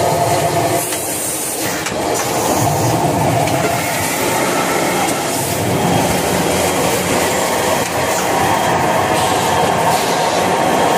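Automatic kitchen towel multi-roll packing machine running: a steady, loud mechanical noise without pause.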